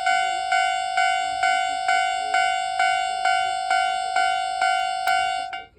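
Railway level-crossing warning sounder ringing its repeated "kan-kan" alarm, a single bright pitched ding a little over twice a second, each stroke decaying into the next. It cuts off just before the end.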